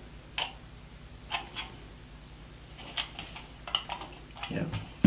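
Scattered light clicks and taps as a metal test pin and crocodile clip are moved between the sockets of a plastic plug adapter, checking each socket for continuity.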